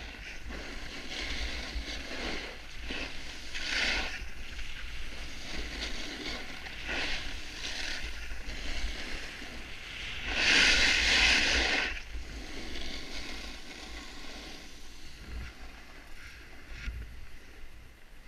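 Edges sliding and scraping over packed snow on a downhill run, with wind rushing over a helmet-mounted camera. The noise swells and fades with each turn, and a harder, louder scrape lasts about a second and a half around ten seconds in.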